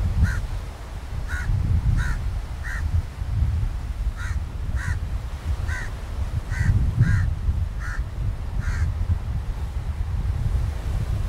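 Crows cawing repeatedly: about a dozen short, harsh calls spread through the stretch, over a steady low rumble.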